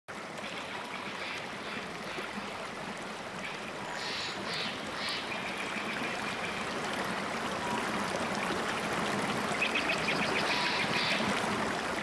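Shallow stream running over rocks, a steady rush of water that grows slowly louder.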